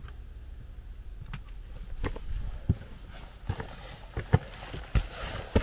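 Hiker's boots and trekking pole on a rocky, gravelly path, one step every half second or so from about two seconds in, getting louder as he approaches. A low wind rumble lies underneath.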